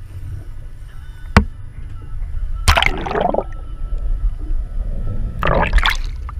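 Water splashing hard at the side of the boat in two bursts about three seconds apart, over a steady low rumble. A single sharp knock sounds about a second in.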